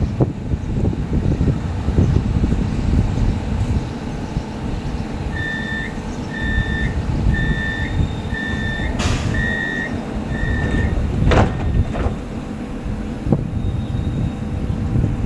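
CAF Urbos 3 tram's door-closing warning: six evenly spaced electronic beeps, about one a second, followed by the doors shutting with a sharp thump, over a steady low rumble.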